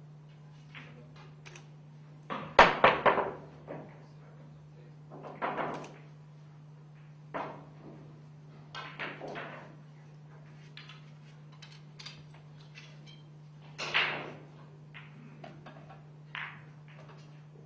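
Pool balls clacking: a cue strike and a quick run of ball-on-ball and cushion hits about two and a half seconds in, the loudest part, then scattered single clacks and knocks. A steady low hum runs underneath.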